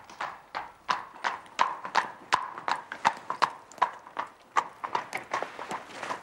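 Horse's hooves clip-clopping on wet cobblestones as a horse-drawn carriage moves along, about three ringing hoofbeats a second.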